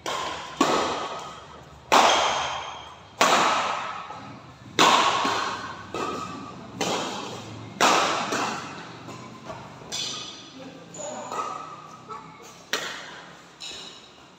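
Badminton rally: rackets striking the shuttlecock back and forth, about a dozen sharp hits at roughly one a second, each echoing briefly in a large hall.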